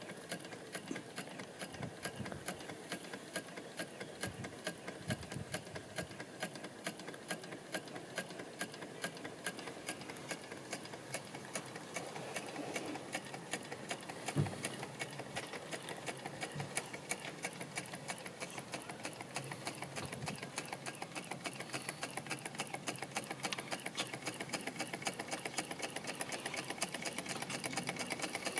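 1922 James Carter brass hot-air (Stirling-type) engine running, its piston, connecting rod and flywheel crank making a rapid, even clicking clatter. There is a single louder knock about halfway through.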